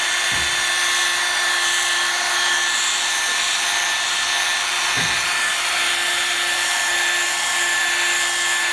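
Electric car polishing machine running steadily with a high, even whine, its note dipping briefly twice, near the start and about halfway through.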